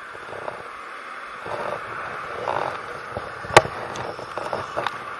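Close handling noise of a motorcyclist's gear, rustling fabric against the camera, with one sharp click about three and a half seconds in, over a steady hiss of wind and road noise.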